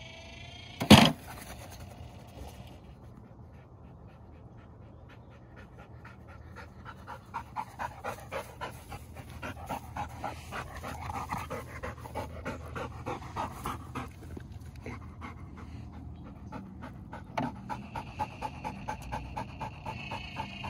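Golden retriever panting hard and fast, about three to four breaths a second, taking over about six seconds in: a dog winded from chasing the ball. A single sharp thump about a second in is the loudest sound.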